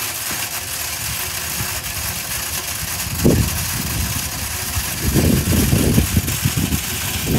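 Automatic fish feeder running: a Texas Hunter Pro Series spin feeder's motor flings pellets across the pond surface as a steady hiss that starts suddenly. Low rumbles come in about three seconds in and again from about five seconds.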